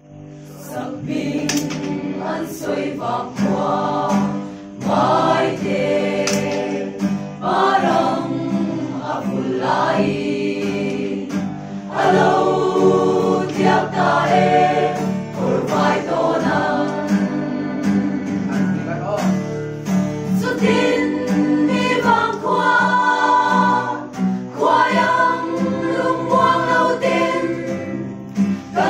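Choir of young women singing together.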